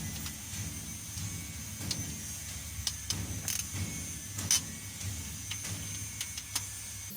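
Sharp metallic clicks and knocks from hand tools tightening the camshaft bearing cap bolts on a 4D56 diesel cylinder head, roughly one a second, the loudest about four and a half seconds in. Under them runs a steady low hum that cuts off abruptly at the end.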